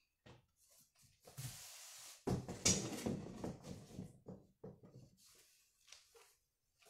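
Items being handled and pushed into a cardboard box: irregular rustling, scraping against the cardboard and a few light knocks, loudest about two to three seconds in.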